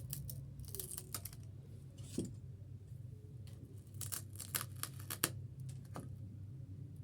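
Scattered light clicks and handling noises, bunched about a second in and again past the middle, over a steady low hum.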